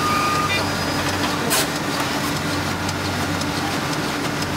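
Steady drone of printing machinery running in a print shop, with a low hum throughout. A short beep sounds right at the start, and a brief high hiss comes about one and a half seconds in.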